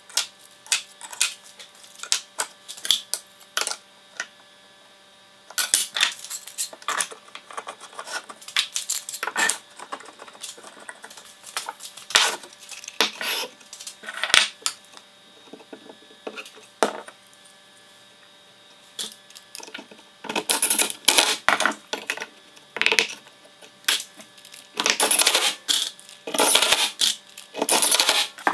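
Hard plastic spacers and steel bar clamps being set against wooden strips on a workbench: irregular light clicks and clacks, gathering into denser rattling bursts several times.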